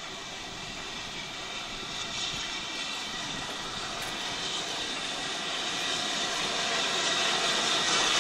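BR Standard Class 9F steam locomotive 92134 approaching slowly with its coaches, a steady running noise without clear exhaust beats that grows steadily louder as it nears.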